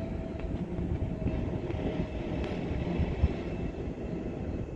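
CPTM Series 9500 electric train standing at the platform, its equipment running with a steady low hum and rumble. A single dull thump about three seconds in.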